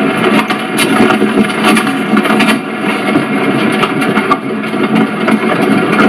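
Horse-drawn carriage on the move: a steady, dense rolling rumble with irregular clattering knocks through it.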